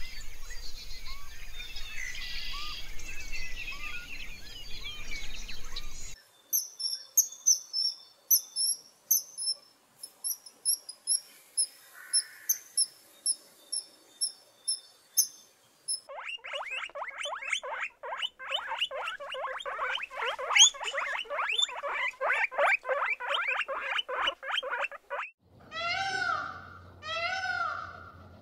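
A series of animal sounds. First there is background birdsong and insect noise. Then come short, very high-pitched kingfisher calls, then several seconds of fast, loud chattering calls, and near the end a white peacock's repeated loud cries, about one a second.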